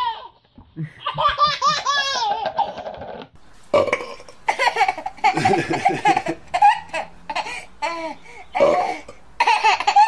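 Babies laughing: first a wavering, bubbly giggle, then after a cut a baby's hard belly laughs in loud bursts with gulping catches, which the parent takes for hiccups.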